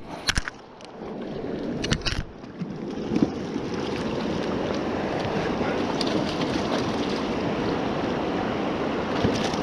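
Steady rush of a river flowing over rocks, with a few sharp knocks in the first two seconds and a hooked brown trout splashing at the surface close by.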